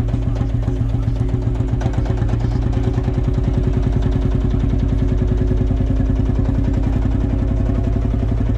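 Vintage tractor engine running steadily at low speed as the tractor drives along, with a rapid, even beat of firing pulses.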